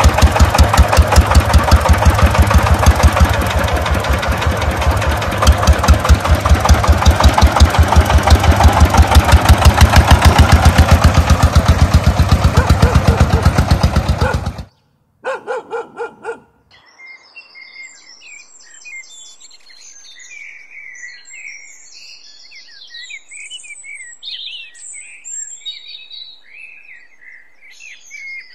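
Small tractor-type engine chugging loudly in a fast, even putter that stops abruptly about halfway through, then a brief second burst of chugging. After that, faint birds chirping.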